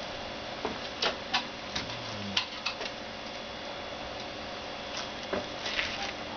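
Scattered light clicks and knocks of hand work on a wheelchair wheel, irregular and a few to the second at most, over a steady hum.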